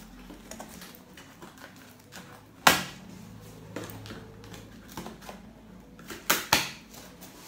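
Cardboard box being pulled open by hand: rustling and small clicks of the flaps and packing tape, with a loud sharp snap about a third of the way in and two more in quick succession near the end.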